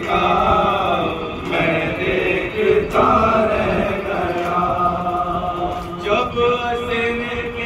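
A male voice chanting a noha, a Shia lament for Muharram, in long held lines with short breaks between them.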